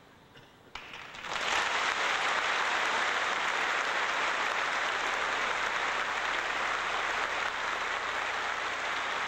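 A single sharp knock, then a large audience bursts into loud, sustained applause about a second in, easing a little near the end.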